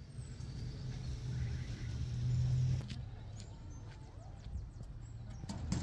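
Outdoor ambience: a low, steady rumble that swells about two to three seconds in and then eases, with a few sharp clicks near the end.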